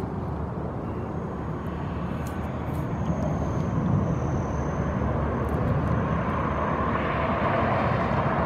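Steady low rumble of distant engine noise, growing a little stronger about seven seconds in, with a faint thin high whine through most of it.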